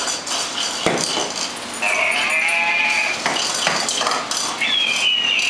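Babble Ball talking dog toy sounding a sheep's bleat through its small speaker, twice, each call drawn out and wavering. Sharp knocks as the hard plastic ball hits the floor, one about a second in.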